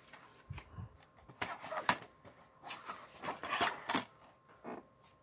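Plastic DVD cases being handled and flipped over on a laptop lid: a scattered series of light clacks and knocks, about a dozen, with short quiet gaps between.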